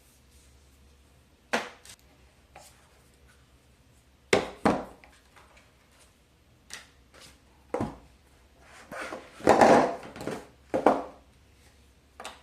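Smartphone box and packaging handled close to the microphone: scattered sharp taps and clicks, with a longer rustle about nine to ten seconds in.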